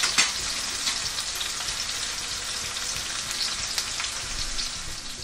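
Chopped onion and garlic frying in hot oil in a pan: a steady crackling sizzle as the onion browns, easing off near the end.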